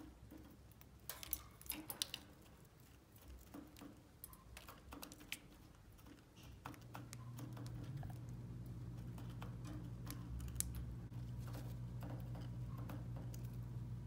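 Scattered sharp clicks and taps of budgerigars cracking seed and pecking in metal food bowls. About halfway in, a low steady hum starts and carries on underneath.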